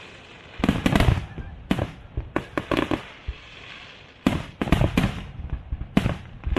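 Fireworks display: aerial shells bursting in quick clusters of sharp bangs, each followed by an echoing rumble. Bursts come about a second in, around three seconds, and again from about four to six seconds, with a short lull between.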